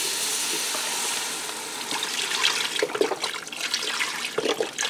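Chicken broth pouring from a carton into a pot of onions and roux. It pours in a steady stream for about two seconds, then comes in uneven glugs and splashes as the carton empties.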